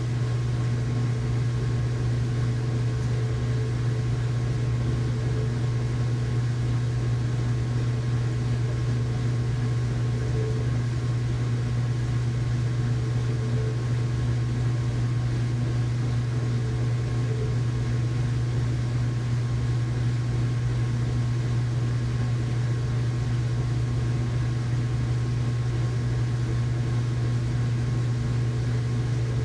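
Household washing machine running in its rinse cycle: a steady low motor hum that holds even throughout.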